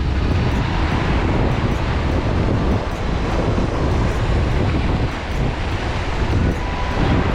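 Strong wind buffeting the microphone, a continuous rumbling that flutters up and down without a break.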